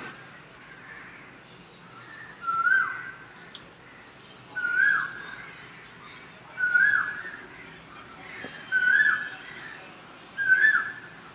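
A crane calling: five short, loud calls about two seconds apart, each a held note that drops in pitch at its end.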